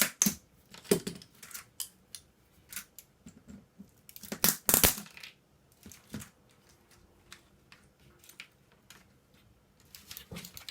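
Plastic keycaps and small parts being pried and clicked off an old computer keyboard: scattered clicks and knocks, with the loudest clatter about four and a half seconds in.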